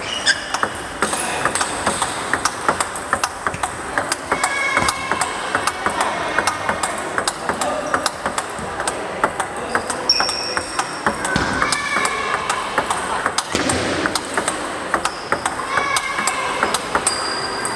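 Table tennis rally: the ball clicks sharply off the bats' rubbers, one of them the Sueke Phantom II Attack, and bounces on the table in a quick, unbroken run of hits.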